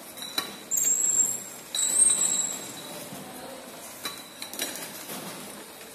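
Automatic bottle labeling machine running: glass bottles clinking along the conveyor with sharp clicks. Two short high-pitched whines come in the first half.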